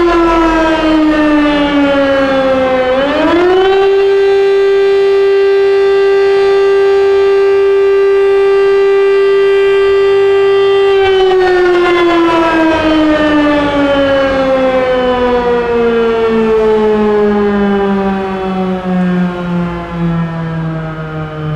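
Rooftop siren with a cluster of horns sounding the French national alert signal, which calls people to shelter indoors. Its pitch falls, swings back up about three seconds in to a steady tone held for about seven seconds, then glides slowly down and fades near the end.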